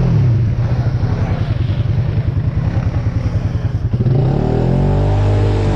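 An ATV engine drops to a low, pulsing chug. About four seconds in it revs up, then eases back down near the end.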